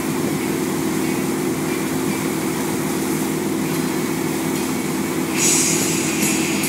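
Wake boat's inboard engine running steadily under the rushing of its churning wake. About five seconds in, a louder rushing hiss joins.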